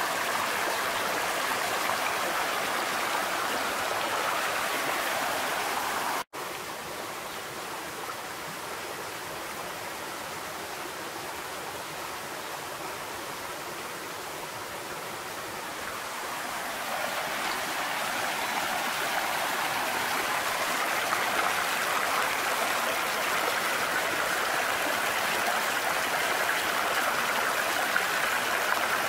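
Shallow mountain stream rushing over rocks, a steady hiss of water. It cuts out for an instant about six seconds in, comes back quieter, and grows louder again in the second half.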